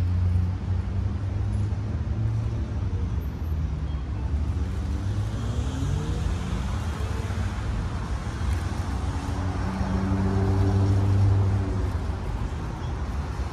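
An engine running with a steady deep hum, its pitch shifting a little a few times and growing loudest about ten seconds in.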